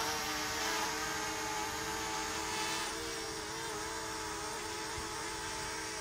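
DJI Mavic Mini quadcopter hovering, its propellers whirring in a steady, high-pitched buzz with slight wavers in pitch.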